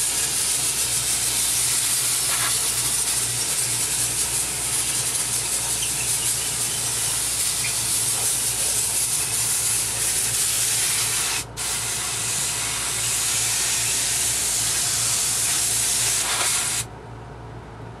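Compressed air from an air-hose blow nozzle blasting through a window air conditioner's wet front coil, driving the soaked-in dirt and water out of the fins. It is a loud, steady hiss that breaks off for an instant about eleven seconds in and stops shortly before the end, over the low hum of the running unit.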